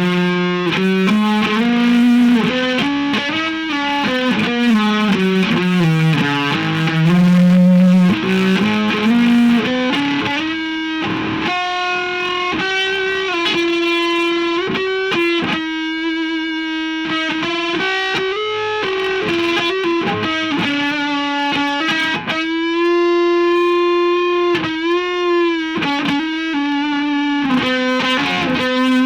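Electric guitar played through distortion, a slow lead line of held notes. Several notes are bent and wavered toward the end.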